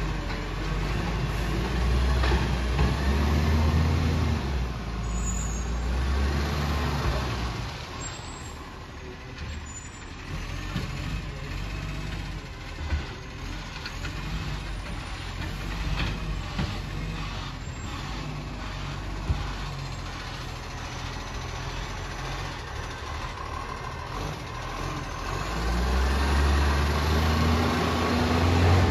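Iveco garbage truck's diesel engine revving up for a few seconds about two seconds in, then running lower, and revving up again near the end as the truck drives off. A couple of sharp clicks are heard in the quieter middle stretch.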